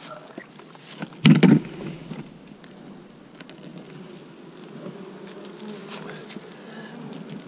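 Honey bees buzzing in a steady hum, agitated because their hive was opened without smoke. About a second in there is a short, loud knock.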